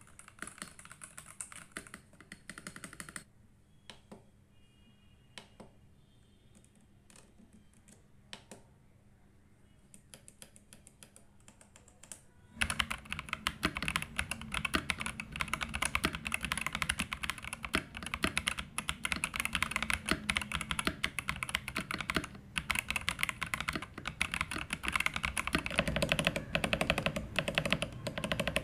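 Zifriend ZA68 mechanical keyboard being typed on: a few scattered single keypresses at first, then about twelve seconds in, fast continuous typing that runs on.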